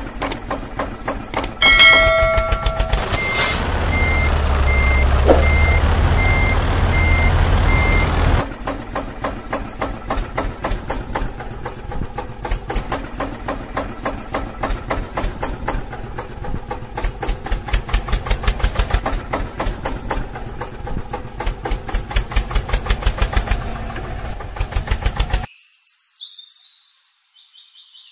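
Tractor engine sound chugging fast and steadily, with a horn blast about two seconds in, followed by several seconds of regular reversing beeps over a deep rumble. Near the end the engine sound cuts off and only a faint, thin hiss remains.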